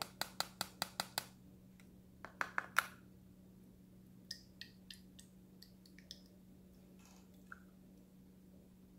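Light, sharp taps on a small glass serum bottle held upside down to knock the thick gel out: a quick run of about six taps, three louder ones about two and a half seconds in, then fainter scattered taps. A steady low hum sits underneath.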